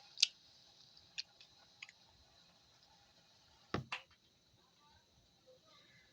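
A few light, sharp clicks and knocks spread out over several seconds, the loudest a quick double knock a little past the middle.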